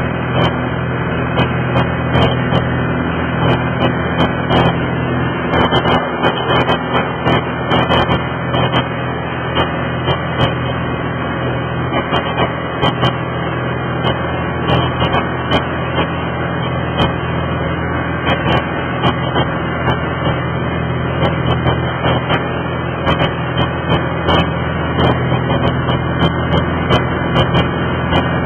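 A boat's motor running steadily under way: a constant low hum under a rushing noise, with frequent short sharp clicks.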